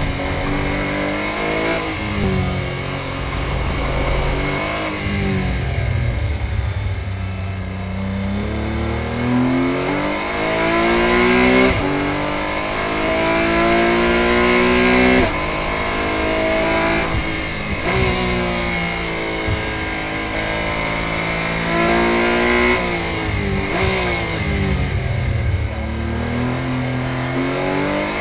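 Porsche 718 Cayman GT4 Clubsport's 3.8-litre flat-six heard from inside the cockpit under hard acceleration, its pitch climbing through the revs with two quick upshifts about 12 and 15 seconds in. It then drops in pitch in steps as the car brakes and shifts down, and revs up again near the end.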